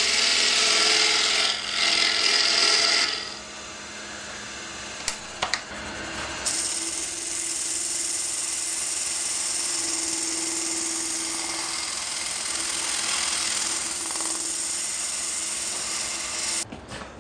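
Wood lathe turning an epoxy bowl: a gouge cuts the inside with a loud hiss for about three seconds. From about six seconds a hand-held power sander with a disc runs steadily against the spinning bowl, with a steady hum, stopping shortly before the end.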